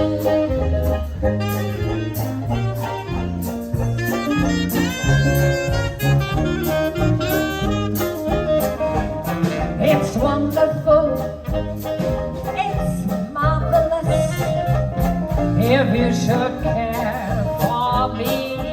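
Jazz band playing an upbeat number, with singing over the instruments.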